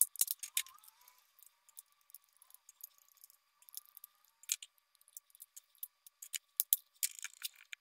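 Many short, sharp plastic clicks and ticks as a screwdriver pries the snap-in side covers and clips off a small cordless air compressor's plastic housing.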